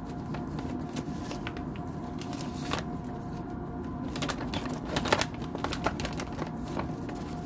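Irregular crackling and clicking of food wrapping being handled and opened, with one sharper click about five seconds in, over a steady background hum.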